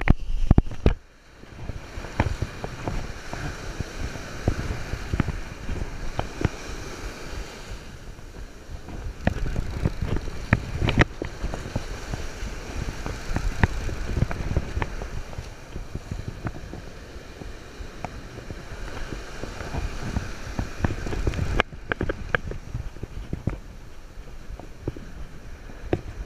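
Surf washing and breaking around the angler, with wind buffeting the action camera's microphone and scattered sharp knocks and clicks from handling the rod.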